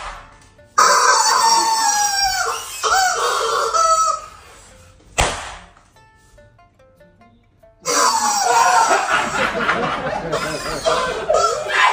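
Yellow rubber screaming chicken toy squeezed into long, loud squawks with wavering pitch, in two stretches. A single sharp slipper slap about five seconds in, between them.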